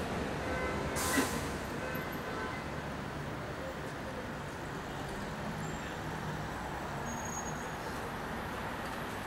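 Steady road traffic noise along a city street, with a short hiss about a second in.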